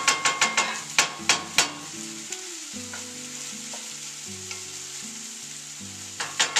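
Wooden spatula knocking and scraping against a red enameled skillet while stirring ground meat and garlic, over a steady sizzle of the meat frying. There is a quick run of sharp knocks in the first two seconds and a few more near the end.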